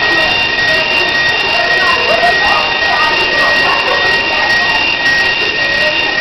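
Fire alarm sounding continuously: a loud, steady high-pitched electronic tone held without pulsing or breaks, over a hissing noise.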